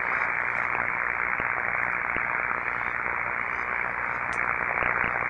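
Corona discharge on overhead power lines, made audible by an SDT 270 ultrasound detector with a parabolic dish: a steady hiss with a few faint crackles.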